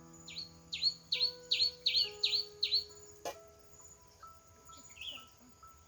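A bird calling a quick series of about seven sharp notes, each sweeping downward, in the first three seconds, then a few fainter calls. Soft background music with long held notes and a steady high insect drone run underneath, and there is a single sharp click a little after three seconds in.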